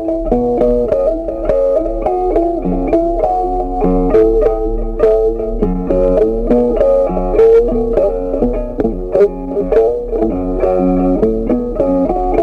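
Background music: a plucked guitar picking a melody of quick, changing notes.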